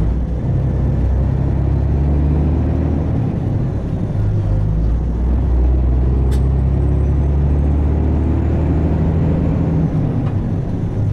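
Diesel semi truck engine running under way, heard from inside the cab as a steady low drone whose pitch steps up and down with engine speed. A single sharp click about six seconds in.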